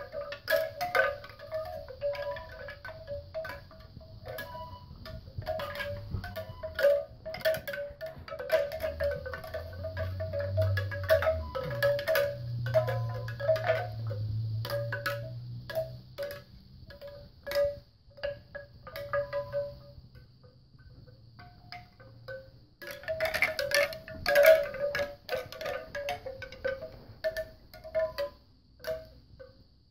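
Bamboo wind chime clattering as a Labrador puppy bats and mouths its hanging tubes: rapid hollow knocks, each ringing briefly at a few pitches, in flurries, with a pause of a few seconds about two-thirds of the way through.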